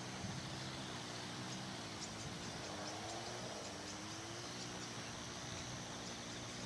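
Outdoor ambience: a steady, low engine hum with a slowly wavering pitch, like distant traffic, under a light hiss. Insects trill in a fast, even pulse, most clearly toward the end.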